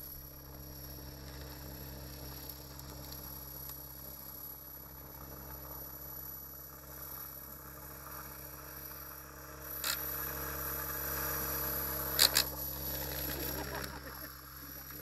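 RC helicopter hovering inverted low to the ground, its rotor blades and motor giving a steady hum with a thin high whine. It gets louder for a few seconds from about ten seconds in, with a knock and then two sharp clicks.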